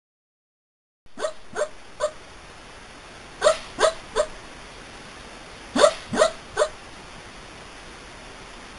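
Sleeping dog giving short barks in a dream: nine quick barks in three bursts of three, each burst a few seconds apart, over a steady hiss.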